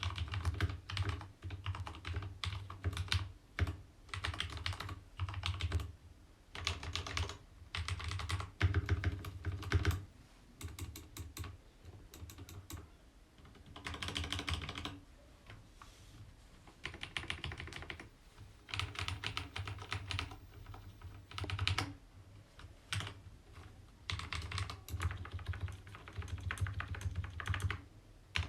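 Typing on an Akko x Ducky Zero 3087 mechanical keyboard with lubed switches: quick runs of keystrokes broken by short pauses.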